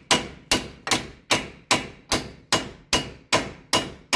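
Lump hammer striking a seized front hub in a fast, steady series of blows, about two and a half a second, each a sharp metallic hit with a short ring. The repeated hammering is meant to crack the hub free of the swivel housing.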